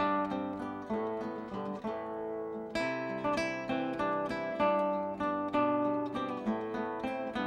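Acoustic guitar music with plucked and strummed chords.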